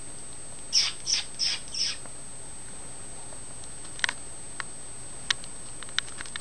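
An Old English Sheepdog sniffing four times in quick succession, short breathy snuffs about a third of a second apart, followed by a few scattered sharp clicks.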